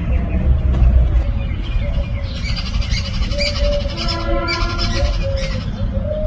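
Birds calling and chirping: short repeated rising-and-falling calls, with rapid high chirping from about two seconds in, over a steady low rumble.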